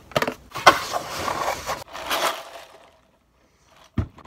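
Crinkling and scraping of a foil takeout bowl being handled and its lid pulled about, in two rustling stretches, then a single low thump near the end.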